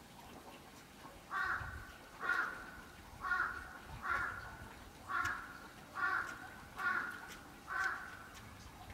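An animal calling eight times in a steady series, short calls a little under a second apart.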